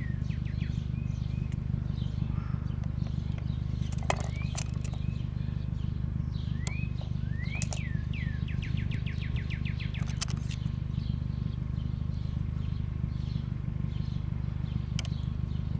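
Small songbirds chirping with short rising calls, one giving a quick trill of about ten notes a second partway through. A few sharp clicks sound now and then, over a steady low rumble.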